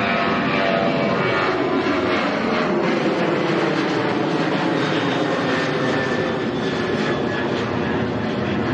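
Boeing 737-800's twin CFM56-7B turbofans at takeoff thrust as the jet climbs out: a loud, steady jet engine noise with whining tones that drift slightly lower in pitch.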